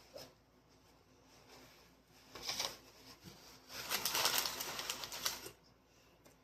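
Eating noises close to the microphone while chips and a sandwich are being eaten: two bursts of crackly, crunchy noise, a short one about two and a half seconds in and a longer, louder one from about four to five and a half seconds.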